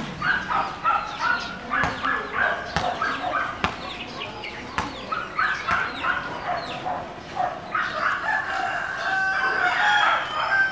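Chickens clucking in a busy run of short calls, with a rooster crowing near the end.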